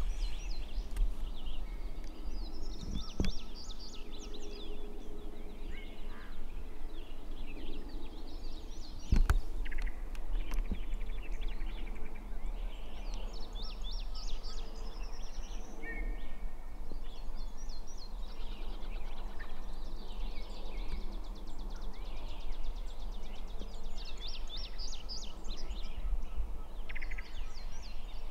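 Several songbirds singing in overlapping chirps and trills, over a steady low rumble, with a sharp knock about three seconds in and a louder one about nine seconds in.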